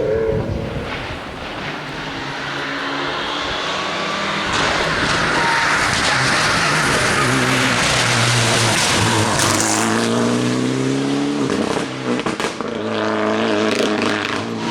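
Rally car at full race pace: the engine revs hard, its pitch climbing and dropping with gear changes, with a loud rush of noise as it passes. A brief dip and crackle comes about twelve seconds in, then the revs climb again.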